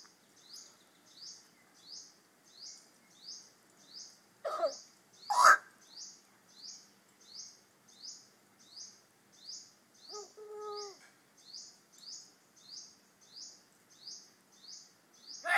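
Bird calls: short high chirps repeat steadily about every 0.7 s, with two louder calls falling in pitch about four to five seconds in and a brief pitched call near ten seconds in, from a talking mimic bird kept as a pet.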